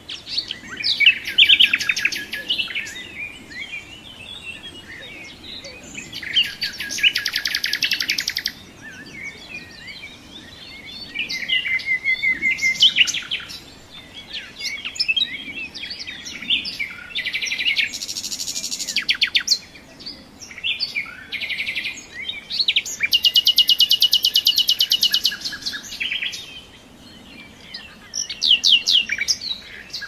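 Songbirds singing: a run of bright, rapid trilled and warbling phrases, each lasting one to three seconds with short pauses between them, the loudest rolling trills about a second in, around seven seconds in, and again past the middle.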